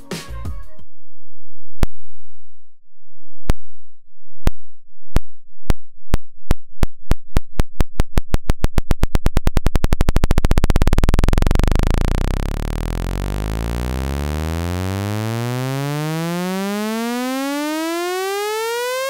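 Synthesized sawtooth wave sonifying a view count: single clicks, each marking another 100,000 views, come faster and faster until they blur into a low buzz about ten seconds in. The buzz then rises steadily in pitch into a bright, buzzy tone.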